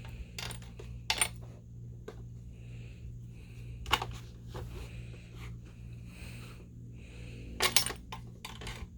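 Treat puzzle box being nudged and worked by a dog: scattered hard clicks and clacks of its pieces, sharpest about a second in, near four seconds, and a quick pair near the end.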